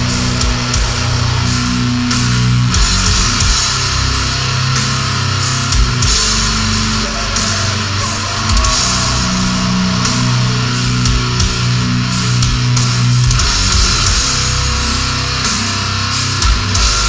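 Death metal band playing live: distorted electric guitars and bass holding heavy low chords over a drum kit, with a constant wash of cymbals.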